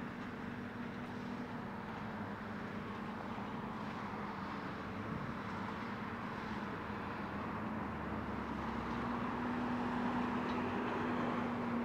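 Diesel engines of excavators running steadily as they work: a constant droning hum that gets a little louder near the end.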